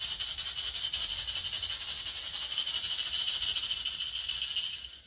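Hand rattle shaken fast and steadily, a continuous dry rattling that fades and stops just before the end.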